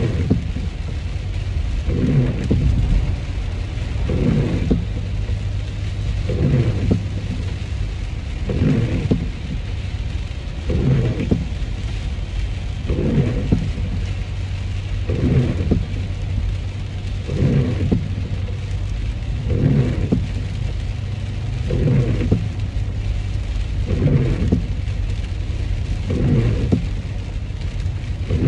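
Inside a moving car in the rain: a steady low rumble of road and engine with rain on the body, and a windshield wiper sweeping about every two seconds.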